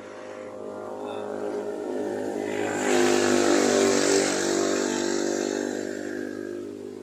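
A motor vehicle passing by: its engine grows louder to a peak about three to four seconds in, then fades away.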